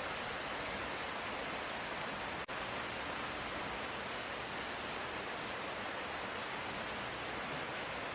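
Steady light rain, an even hiss with no drops or thunder standing out. It cuts out for an instant about two and a half seconds in.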